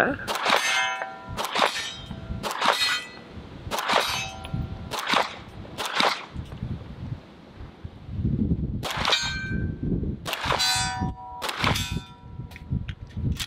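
A string of shots from an Atlas Athena non-ported 2011 pistol, each hit on a steel target answered by a ringing clang, with a pause of about two seconds midway.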